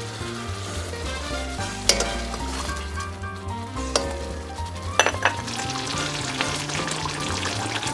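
Starch-thickened curry sauce bubbling at a boil in a black iron wok over a gas flame, brought up to the boil to finish the dish. A metal ladle stirs it and clinks against the wok a few times, about two, four and five seconds in.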